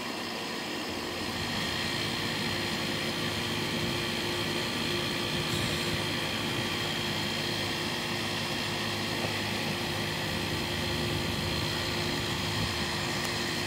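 A steady mechanical hum with a few steady high tones over it, getting a little louder about a second and a half in.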